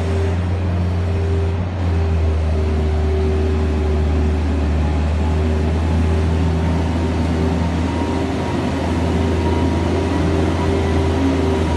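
Bobcat skid-steer loader's engine running steadily, a constant low drone with a fainter steady tone above it.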